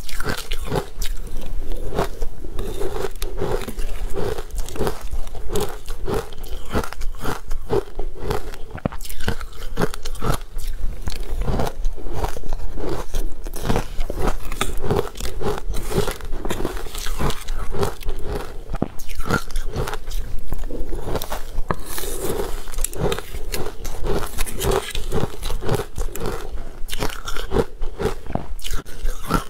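A person chewing mouthfuls of crushed ice close to a clip-on microphone: a continuous run of sharp crunches, several a second.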